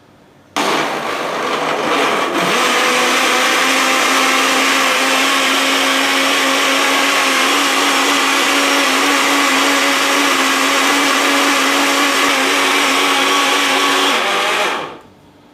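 Electric blender running, blending a protein shake of apple, banana, eggs, peanut butter, whey, milk and water. It starts about half a second in, settles to a steady hum about two seconds later, and stops near the end.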